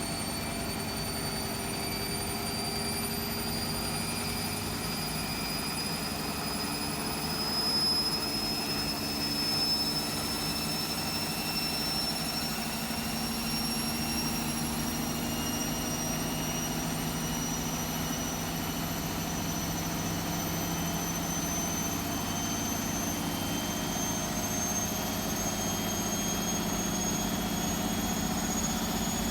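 Hotpoint WMFUG742 washing machine spinning an overloaded load of towels, its motor whine rising slowly and steadily in pitch as the drum speeds up.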